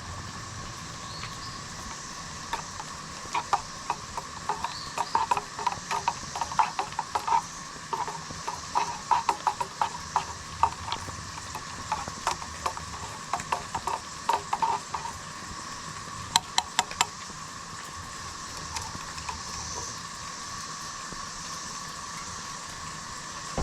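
A metal spoon clinking rapidly against the inside of a titanium cup while stirring instant coffee, a run of quick ringing taps that stops about two-thirds through, with a short last flurry just after.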